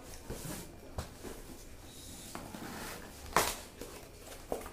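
Cardboard boxes rubbing and scraping as a printed product box is pulled out of a corrugated shipping carton, with a sharp knock of cardboard about three and a half seconds in and a smaller one near the end.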